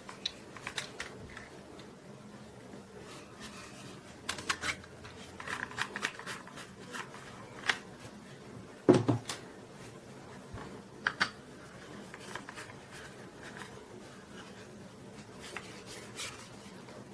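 Scattered clicks and knocks of a small camera accessory being handled, with one louder thump about nine seconds in.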